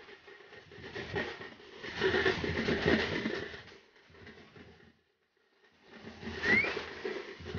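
Noise of a dense festival crowd milling and shuffling. It drops out to silence for about half a second just past the middle, then returns with a short rising whistle near the end.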